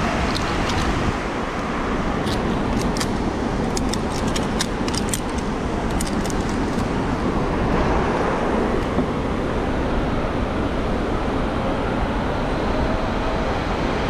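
Steady roar of a large waterfall's rushing water, with a run of light clicks and clinks about two to seven seconds in.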